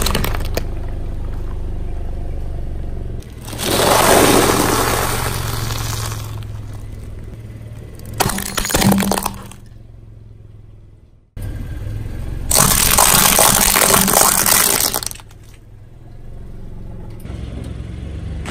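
A car tyre slowly rolling over and crushing objects one after another: several separate bursts of crunching and cracking, one of them a plastic toy car breaking apart, over the low, steady hum of the car's idling engine.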